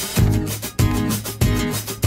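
Instrumental background music with a steady beat, a little under two beats a second, and sustained pitched notes.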